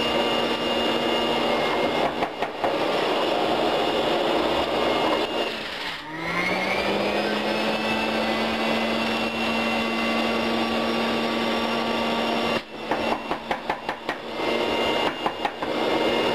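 Breville centrifugal juicer's motor running with a steady whine. About six seconds in its pitch sags and climbs back over the next couple of seconds as it slows under load, and near the end it stutters through a quick series of knocks as produce is pushed down the feed chute.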